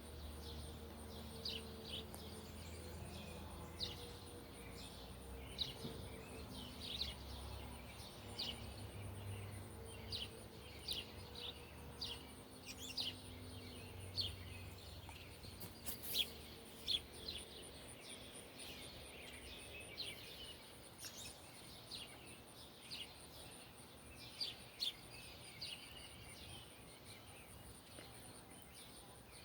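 Distant fire siren winding down, its pitch slowly falling as it fades out over about twenty seconds, while small birds chirp throughout.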